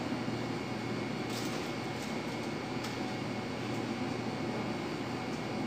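Steady mechanical hum of kitchen machinery with a faint thin tone over it, and a couple of faint light clicks from handling, about a second and a half and three seconds in.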